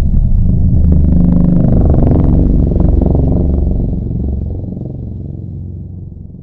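Godzilla creature sound effect: a deep, low growl that swells up, holds loud for about three seconds, then fades away.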